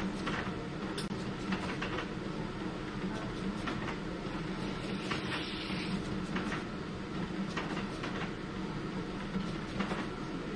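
Epson ColorWorks C6500 label printer running and feeding out a strip of printed labels, with a Kercan KR-500U automatic rewinder turning to take them up: a steady mechanical hum with scattered clicks.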